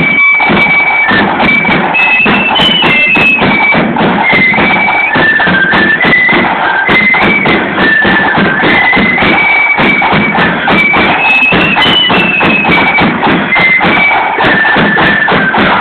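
Marching flute band playing a tune together, the flute melody carried over a steady beat of drum and cymbal strikes.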